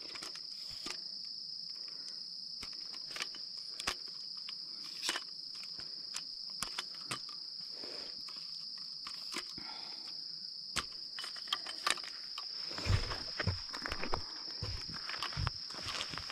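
Steady high-pitched insect chorus, with scattered sharp clicks and snaps as the plastic over-centre leg latches of an aluminium tripod are opened. A few dull knocks and handling thumps come about three-quarters of the way in as the tripod is set down on the ground.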